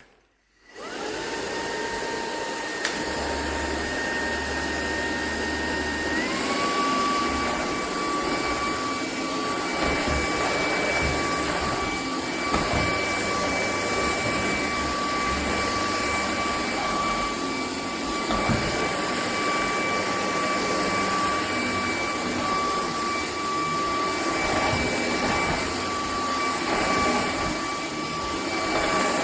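Vacuum cleaner switched on, its motor spinning up to a steady whine. About six seconds in the whine steps up to a higher speed and holds there.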